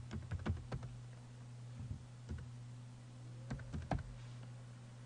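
Computer keyboard keys being typed: a quick run of keystrokes in the first second, a few scattered taps, then another short run a little under four seconds in. A steady low hum runs underneath.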